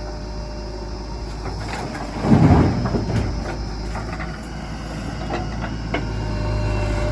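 Diesel engine of a JCB backhoe loader running steadily as it works. A loud heavy rumble comes about two seconds in, and there are a few sharp knocks near the end.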